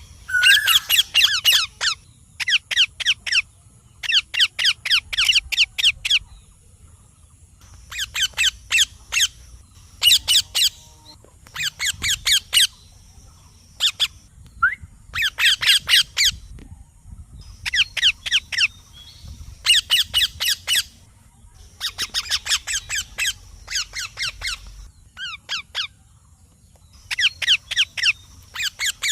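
Baby Indian ringneck parakeet squawking in runs of rapid, short, harsh calls. Each run lasts about a second and they come every couple of seconds.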